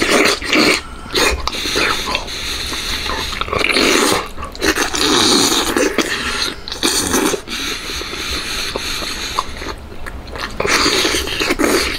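Close-miked eating noises from biting into a hand-held braised pork elbow: wet sucking and chewing on soft, sticky pork skin and meat, in uneven surges.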